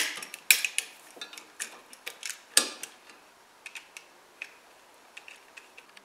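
Sharp metallic clicks and taps from handling a dimmer switch and its wires against a metal electrical box. They are loudest and most frequent in the first three seconds, then thin out to scattered light ticks.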